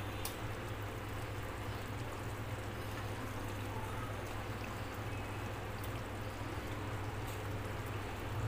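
Masala gravy simmering with a soft bubbling crackle in a pressure cooker on the stove, over a steady low hum, with a few faint clicks.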